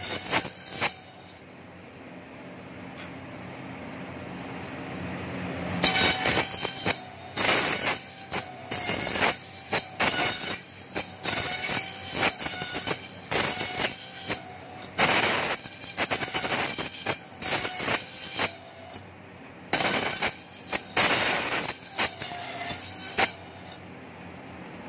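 Bamboo satay-skewer slicing and planing machine running: a steady motor hum, then from about six seconds in, repeated sharp bursts of cutting noise, about one or two a second, as bamboo sticks pass through the roller-fed cutter heads and planers.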